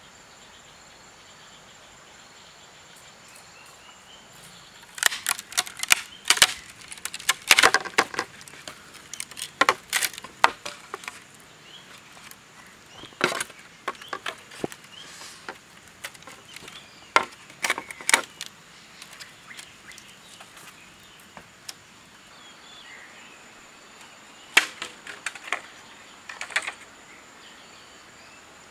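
Green bamboo being split and broken, giving a run of sharp, irregular cracks and snaps that come thickest in the first half, with a faint steady high insect drone behind.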